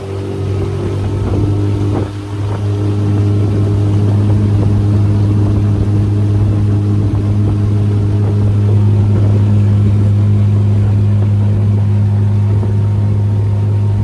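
Skiff's outboard motor running steadily under way, a loud low hum that holds one pitch, with a brief dip in level about two seconds in.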